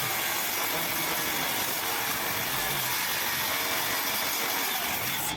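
Welding arc on iron door hinge work: a steady hiss that cuts off abruptly near the end as the arc is broken.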